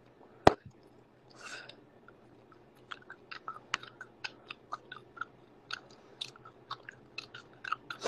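Gum chewed loudly with the mouth open, close to a phone's microphone: one sharp smack about half a second in, then, from about three seconds in, a steady run of wet smacking clicks about three or four a second.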